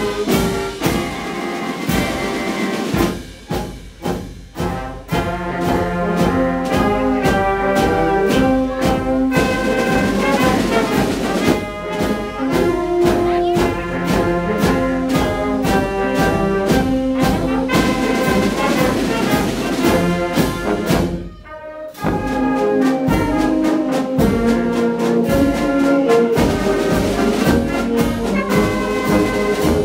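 Fanfare band of trumpets, trombones, sousaphones and flutes playing together, with a softer passage a few seconds in and a brief break about two-thirds through before the full band comes back in.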